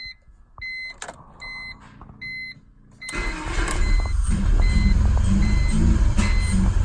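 A repeating electronic warning beep sounds about every two-thirds of a second. About three seconds in, a BMW E46's engine starts and runs at a rough, uneven idle, with a sharp pop a few seconds later. This is the car's rough-idle and stalling problem, in an engine that logged an intake VANOS solenoid valve fault code.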